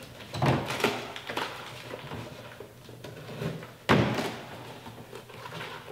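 A cardboard package being handled and opened by hand: irregular knocks and rasping cardboard noises, the loudest a sudden sharp one about four seconds in.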